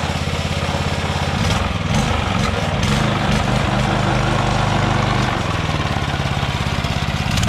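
Go-kart's small lawnmower-type gasoline engine running, its speed rising about a second and a half in and easing back down about five seconds in.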